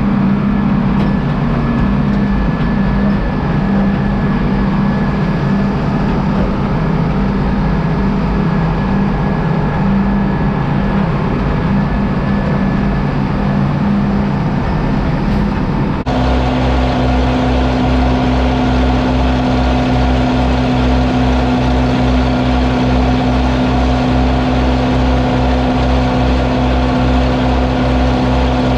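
International 1256 tractor's diesel engine running steadily, heard from inside its cab. About 16 seconds in it switches to a Case 830 tractor running a silage blower while chopped corn is unloaded into the blower's hopper, a steady engine drone with a fast, even pulse.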